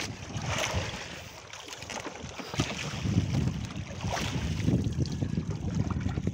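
Wind buffeting the microphone over sea water washing and splashing against a small wooden outrigger boat, with a few louder gusty rushes.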